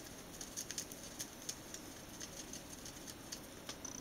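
A rabbit chewing paper: quick, irregular crunches and clicks of its teeth on the paper, thinning out toward the end.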